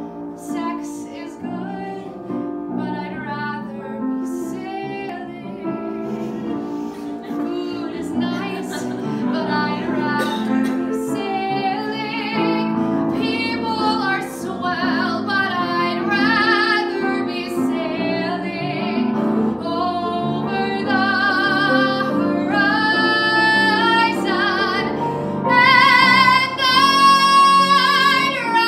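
A woman sings a musical-theatre ballad, accompanied by a grand piano. Her voice grows louder through the phrase and holds long high notes with vibrato near the end.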